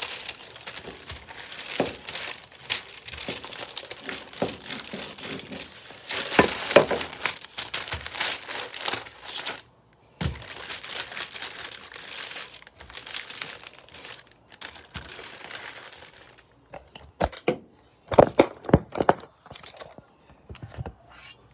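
Paper crinkling and rustling under hands and a wooden rolling pin as pie dough is rolled out, uneven and scratchy. Near the end come several sharp knocks.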